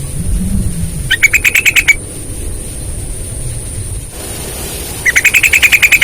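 Sooty-headed bulbul (trucukan) calling: two bursts of rapid repeated notes, about ten a second, one about a second in and another near the end. A low rumble is heard during the first second.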